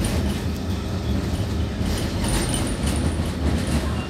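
BN Kusttram (Coast Tram) running along the track: a steady low rumble from the motors and wheels on the rails, with occasional clicks. A faint high wheel squeal comes in a little past the middle for about a second and a half.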